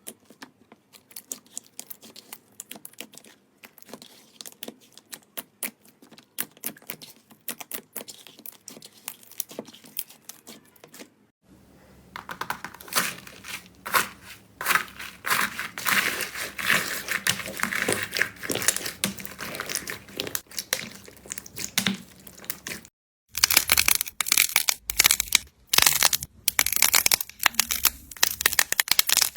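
Slime being handled and squeezed, making quick sticky crackles and clicks. They are sparse and soft at first, grow denser and louder from about 11 seconds in, and turn to loud crunchy snaps after a brief break at about 23 seconds.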